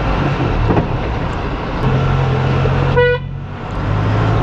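Eicher Pro 2055 tipper's 3-litre four-cylinder common-rail diesel running on the move, heard from inside the cab with road noise. A single short horn toot sounds about three seconds in.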